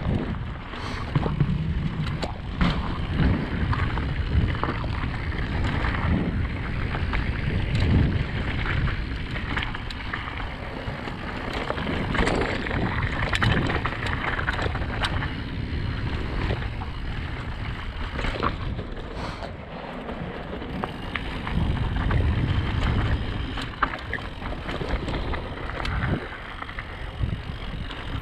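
Riding wind rushing over a GoPro Hero 7 Black's microphone during a mountain-bike descent, with tyres running over rough trail and the Radon Swoop 8.0 AL mountain bike clattering over bumps in frequent irregular knocks.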